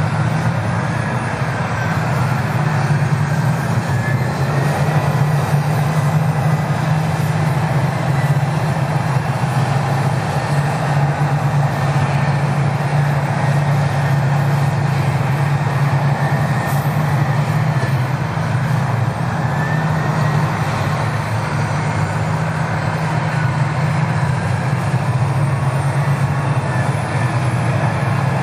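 Heavy diesel engines of Komatsu dozers and Caterpillar 657 scrapers working together, a steady loud low drone with a faint wavering whine above it.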